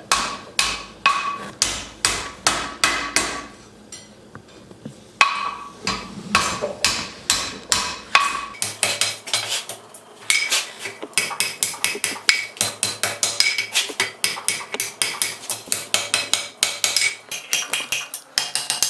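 Blacksmith's hammer striking a hot iron horseshoe on an anvil in a steady run of ringing blows, bending the iron for a hinge. The blows pause briefly twice and come faster in the second half.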